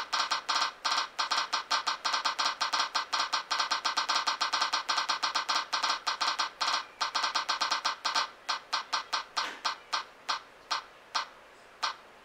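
A phone spin-the-wheel app ticking with a short electronic tick as each slice passes the pointer. The ticks come fast at first, then space out more and more over the last few seconds as the wheel slows toward a stop.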